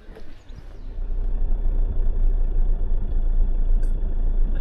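Motorhome on the move, heard from inside the cab: a steady low engine and road rumble that comes in loud about a second in, after a quieter stretch.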